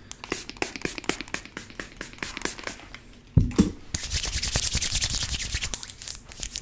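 Close-miked hand sounds: a quick run of light clicks for about three seconds, a thump just past the middle, then hands rubbing close to the microphone in a steady, scratchy hiss.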